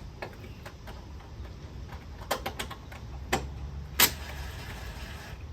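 A few scattered sharp clicks and knocks of hand tools and metal parts being handled while the last intake clamps are tightened, the loudest about four seconds in, over a low steady hum.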